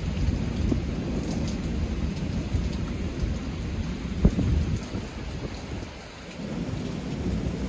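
Constant rolling thunder rumbling under steady rain, with a short sharp knock about four seconds in.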